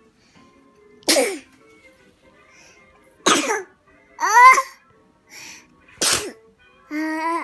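Baby sneezing: three sharp sneezes a couple of seconds apart, with short high-pitched vocal squeaks between them and a held little cry near the end.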